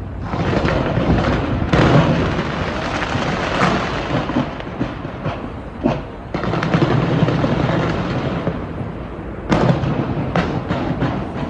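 Fireworks display going off: a dense run of bangs and crackling over a continuous rumble, with sharp louder bangs about two seconds in and again near the end.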